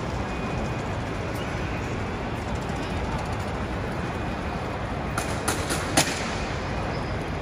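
Steady rushing background noise, broken by a quick run of four sharp clicks or knocks about five to six seconds in, the last the loudest.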